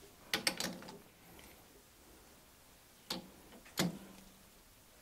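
Metal clicks and knocks from a lathe's four-jaw chuck being turned and adjusted by hand while the workpiece is centered. A quick cluster of clicks comes about half a second in. Two sharper knocks follow about three and four seconds in, and the second rings briefly.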